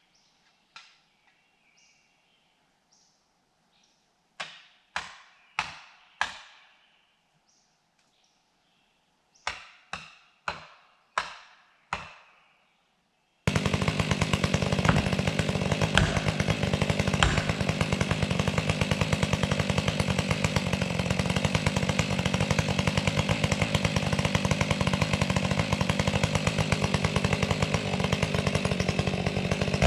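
Nine sharp metal-on-wedge strikes in two groups of four and five, about two a second, as a felling wedge is hammered into the cut. About thirteen seconds in, a chainsaw cuts in at full throttle, running steadily through the felling cut.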